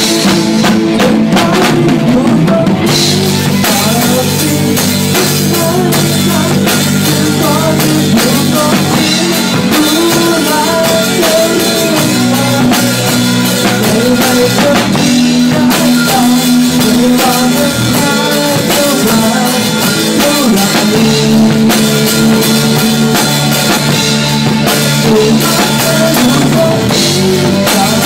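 A rock band playing live close up: a drum kit with cymbals and bass drum hits loud at the front, over electric guitars playing chords. The music is loud and unbroken throughout.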